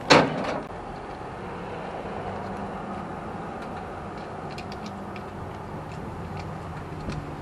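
Kawasaki Vulcan Vaquero's V-twin motorcycle engine idling steadily, with a brief loud burst of noise right at the start and a few faint clicks midway.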